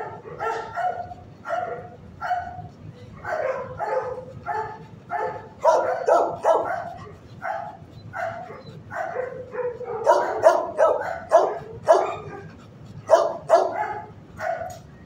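Several dogs barking in a shelter kennel block, short barks of differing pitch coming in quick succession, busiest about halfway through and again near the end.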